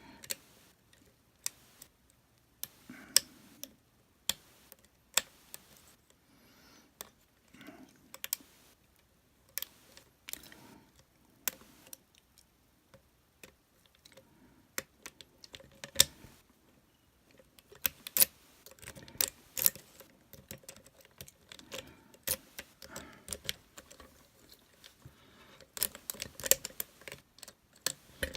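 Lock picks working inside a Master Lock lockout/tagout padlock: irregular small metallic clicks and ticks of the pick and tension wrench against the pins, with faint scraping between, coming in quicker clusters later on.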